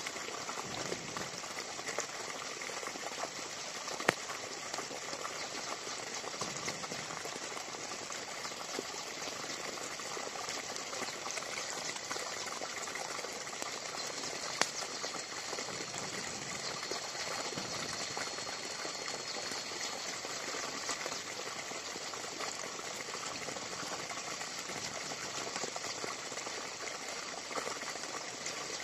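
Wood campfire crackling and hissing steadily, with a few sharper pops.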